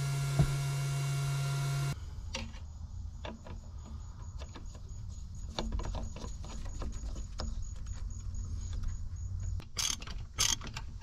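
Steady electrical hum for about two seconds, then a low rumble with scattered light clicks of a socket wrench and extension working a replacement pressure sensor into a diesel engine. Several louder metallic clacks near the end.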